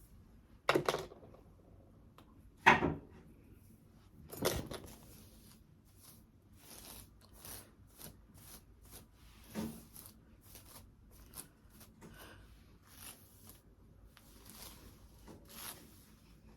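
Handling noises: three sharp knocks in the first five seconds, then faint rustling and small clicks as things are moved about close by.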